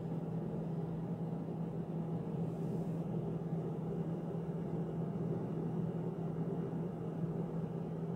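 A steady low hum with one constant low tone, like a motor or appliance running, unchanged throughout.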